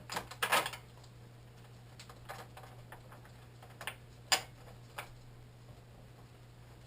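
Metal clicks and knocks as the rear shock's mounting bolt is lined up and fitted on a Honda Hawk GT: a quick cluster in the first second, then a few single sharp taps, the loudest about four seconds in.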